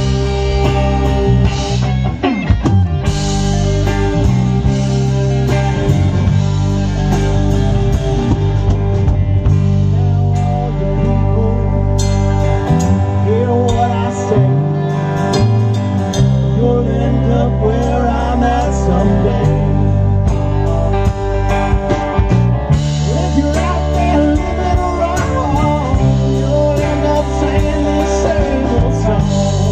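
Live rock band playing loud: electric guitars, bass guitar and drums, with singing.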